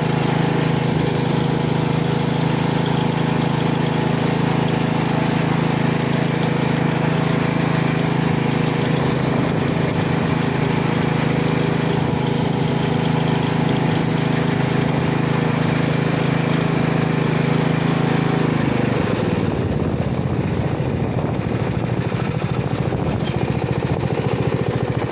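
Riding lawnmower engine running steadily. About three-quarters of the way through, its steady note breaks up and changes, and it gets a little quieter.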